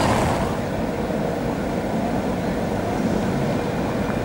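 Steady city street traffic rumble on a tram line, with a faint steady whine above it; a louder passage eases off about half a second in.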